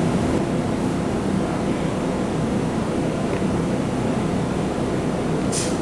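Steady, loud rumbling background noise, with a short high hiss near the end.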